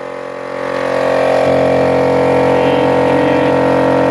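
Multipro DCC-075/10 HS 750-watt piston air compressor running: a steady motor-and-pump hum that builds over the first second and then holds, refilling the tank after air was let out.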